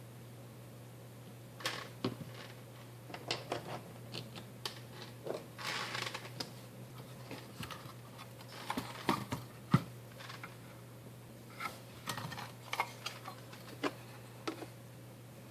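Irregular small clicks, taps and short scrapes of hands and a screwdriver working on laptop parts during the removal of the CPU fan and heatsink, over a steady low hum.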